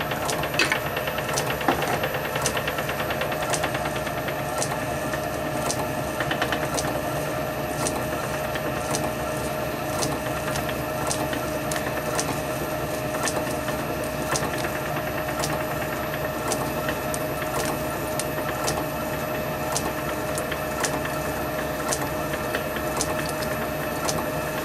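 Small metal lathe running steadily with a drill fed from the tailstock into steel sheet held in the four-jaw chuck. It makes an even hum with a light tick about twice a second.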